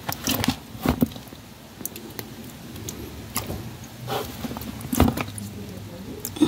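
Fish and a tied plastic bag being handled and shifted in a plastic bin by hand: scattered knocks and thuds against the plastic, several over a few seconds, with light rustling between them.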